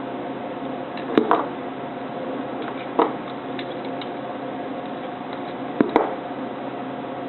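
Wire strippers snapping as they cut and pull insulation off the switch's wire ends: five sharp clicks, two about a second in, one at about three seconds and two more near six seconds, over a steady hum.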